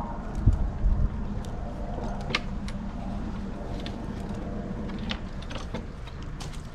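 Handling noise from parts of a home-made plywood binocular chair: a couple of dull thumps about half a second and a second in, then scattered light clicks and knocks, a sharp one a little after two seconds, over a steady low hum.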